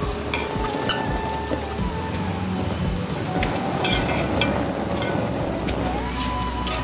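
Potato chips deep-frying in a pan of hot oil, a steady sizzle, with a few sharp clicks.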